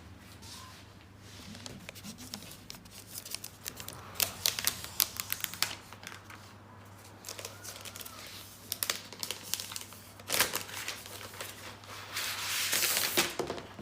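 Plastic wrapping being peeled and torn off a new laptop's packaging, crinkling and crackling in quick bursts, with a longer tearing rush near the end.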